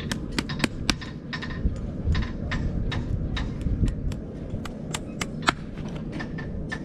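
Farrier's driving hammer tapping horseshoe nails through a steel shoe into a horse's hoof: a quick run of sharp taps, about four or five a second, some much harder than others.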